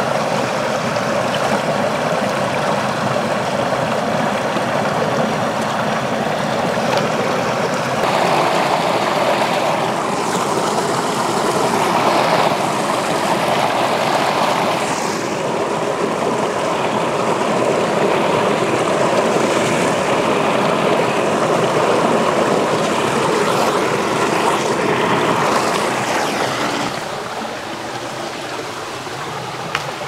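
Steady rush of a stream's running water. It grows fuller about eight seconds in and falls somewhat quieter near the end.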